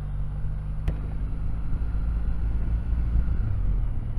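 Kawasaki W800's air-cooled parallel-twin engine running at a steady low drone while riding, with a single sharp click about a second in.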